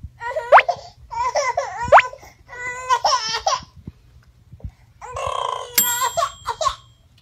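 Infant crying in four short, high-pitched bouts, with upward squeals in the first two: a hungry baby crying as the bottle is taken from its mouth.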